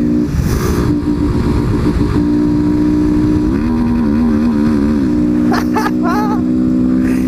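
Honda XRE 190 single-cylinder engine running loud through a muffler with its insides pulled out, riding at steady revs. The pitch wavers up and down for a moment in the middle.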